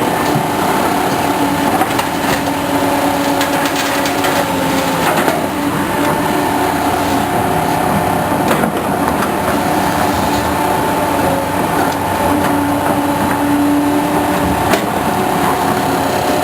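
Excavator running steadily, with held tones from its engine and hydraulics and scattered clanks and knocks from the work.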